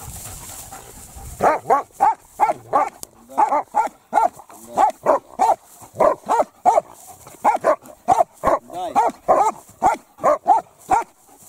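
Two shepherd dogs, one a German Shepherd, barking at their handler on command in the bark-and-hold (облайка) guard-training exercise. The barks are short and sharp, about two or three a second, and start about a second and a half in.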